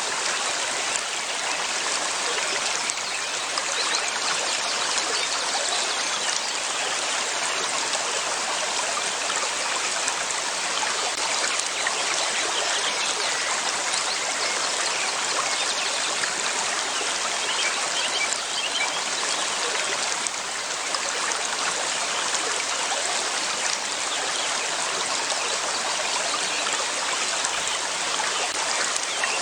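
River water flowing steadily over rocks, a continuous even rush and trickle.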